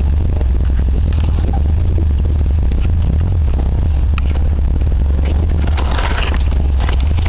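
Off-road vehicle's engine running steadily under load, heard from inside the cab, with the body and loose parts clattering and knocking over a rough trail. A brief rush of noise comes about six seconds in.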